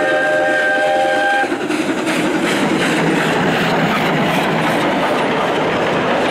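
Class 19D steam locomotive sounding its whistle, a steady chord of several notes that cuts off about a second and a half in. The engine, tender and wagons then roll close past with a rhythmic clatter of wheels on the rails.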